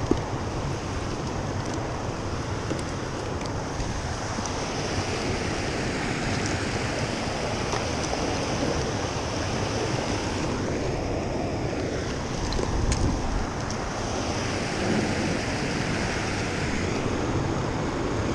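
Fast river current rushing steadily, with wind buffeting the microphone.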